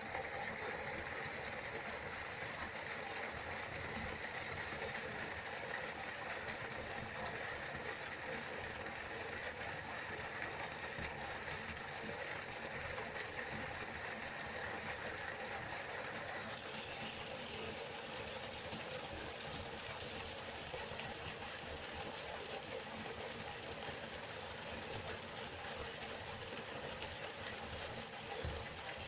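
Waterfall: a steady, continuous rush of falling water, which turns a little brighter and more hissing about two-thirds of the way through.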